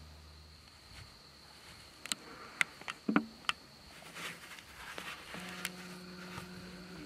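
Handling noise from a hand-held camera being turned around: a few sharp clicks and knocks in quick succession a couple of seconds in. From about five seconds in, a flying insect buzzes steadily close to the microphone.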